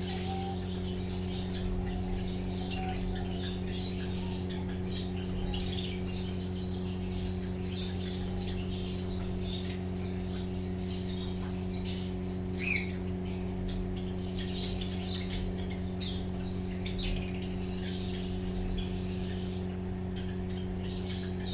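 Small cage birds chirping and twittering, with a few louder sharp calls, the loudest about halfway through. A steady low hum runs underneath.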